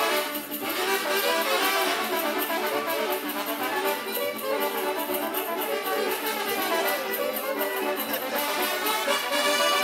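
A brass band plays the dance music for the Kurpites, with trumpets and trombones carrying the tune at a steady level.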